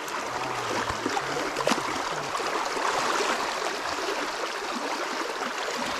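Small mountain brook running over rocks: a steady rush of flowing water.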